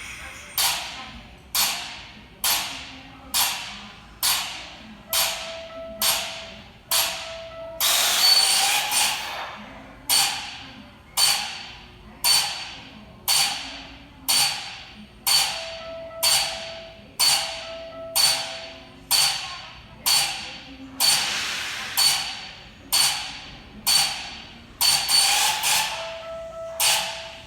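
Underfloor air equipment of a Kintetsu 9020-series EMU venting in short hisses about once a second, each sharp and quickly fading, with two longer hisses. It is an abnormal air release that the crew could not stop, with air escaping continually even while the train is stopped.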